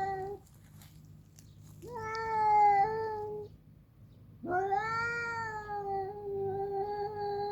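Domestic cat's long, drawn-out territorial yowls, a threat at an intruding cat. One wail trails off just after the start, another lasts about a second and a half from about two seconds in, and a third begins about halfway through and is still going at the end.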